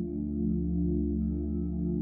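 Ambient meditation music: a steady drone of sustained low tones that waver gently.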